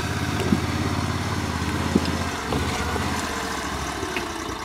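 Engine of a tracked six-wheel amphibious ATV running at low throttle as it inches forward onto a timber balance beam; the engine note dips about halfway through, with a couple of faint clicks.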